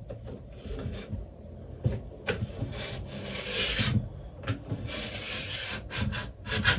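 Hand-held ski edge tuner scraping along a ski's steel edge in a series of strokes of uneven length, the longest lasting about a second, a little past halfway. It is cutting the edge down to shiny metal.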